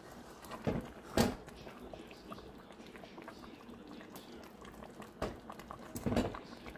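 A spoon being stirred through thick chicken stew in a metal pot: wet sloshing and bubbling, with a few sharp knocks of the spoon against the pot. The loudest knock comes about a second in, and another pair near the end.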